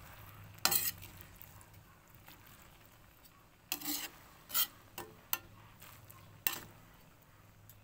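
A cooking utensil stirring and tossing stir-fried noodles in a metal pan, with about six short, sharp scrapes and clanks against the pan, the first about a second in and a cluster in the second half.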